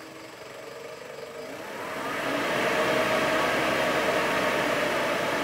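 Motor vehicle running, its engine and road noise growing much louder about two seconds in and then holding steady.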